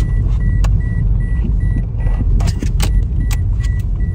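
Car cabin noise while driving: a steady low rumble of road and engine, with a short beep repeating about two to three times a second. Several sharp clicks and rattles come in the second half.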